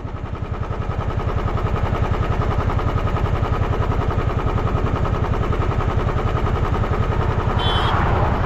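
Royal Enfield Bullet's single-cylinder engine idling steadily, with an even, rapid beat of exhaust pulses.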